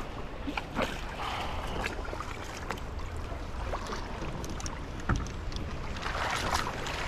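Water splashing and lapping, with a low wind rumble on the microphone and a few light knocks.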